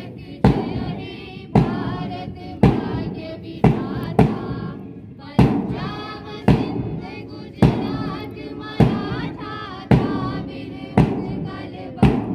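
A group of voices singing in unison over a large bass drum struck about once a second, a slow, steady beat.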